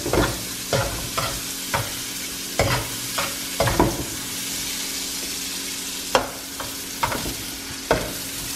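Sliced sausage sizzling in a nonstick frying pan, with a steady hiss, while metal tongs turn the pieces and clack and scrape against the pan about a dozen times at irregular intervals.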